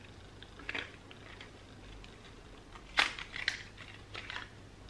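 A small lipstick box being handled and opened: faint rustling with a few light clicks, the sharpest about three seconds in and several smaller ones after it.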